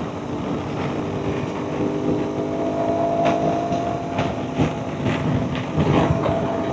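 Aprilia Tuareg 660's 659 cc parallel-twin engine running at a steady cruise through a full Akrapovic exhaust system while the bike is ridden, with wind noise on the microphone.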